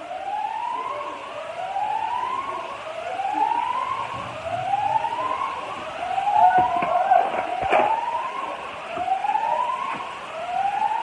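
An electronic alarm siren wailing in a repeated rising whoop, each sweep climbing in pitch and starting over about once every 1.2 seconds. A few sharp knocks or crunches sound over it about two-thirds of the way through.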